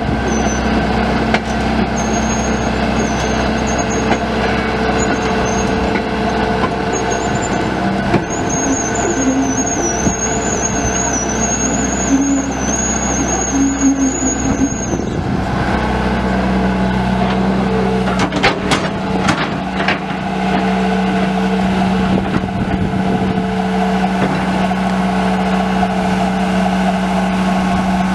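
John Deere 120 excavator's four-cylinder turbo diesel engine running steadily. A high wavering whine sits over it for about the first half, and a few sharp knocks come about two-thirds of the way through.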